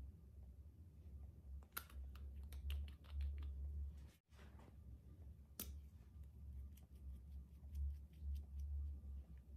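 Small sticky clicks and taps as a plastic makeup applicator dabs and presses colour into clear slime, coming in scattered runs, over a steady low hum. The sound cuts out for an instant about four seconds in.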